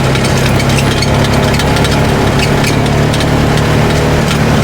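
Polaris RZR 570 side-by-side's single-cylinder engine running at a steady, even pace while driving along a dirt track, with frequent small clicks and rattles over the top.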